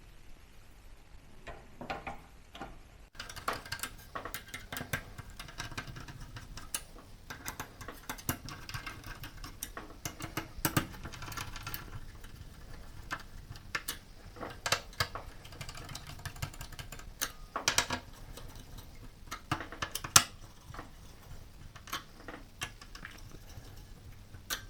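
Irregular small clicks, taps and scrapes of hands and tools working inside a desktop PC while thermal paste is applied and the CPU cooler is refitted and screwed down. The clicks come thicker from about three seconds in.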